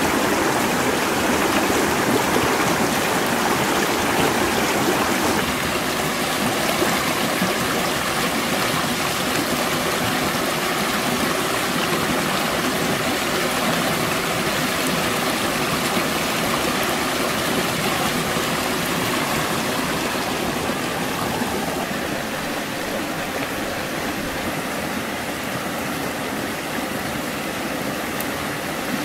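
Shallow rocky stream rushing steadily over stones, a continuous wash of water noise that eases off a little about two-thirds of the way through.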